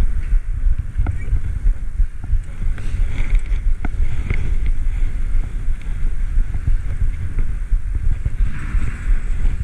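Wind buffeting the microphone of a camera on a moving bicycle: a steady low rumble that pulses unevenly, with a few faint clicks.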